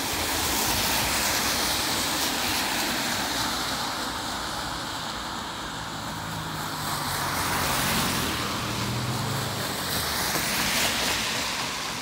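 Road traffic: several cars passing one after another on a wet road, with tyres hissing and swelling and fading as each goes by. A vehicle's engine hum is heard low down through the middle of the passing.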